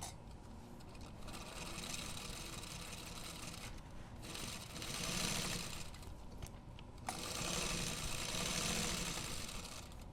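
Domestic sewing machine stitching a zipper seam through bulky layers of bag exterior, zipper and lining. It runs in three stretches with short pauses between, and there is a sharp click a little after halfway.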